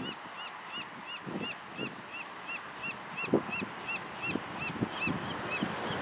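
Birds calling over open water: a steady run of short high chirps, about three a second, that stops shortly before the end, with scattered lower calls underneath, the loudest a little over three seconds in.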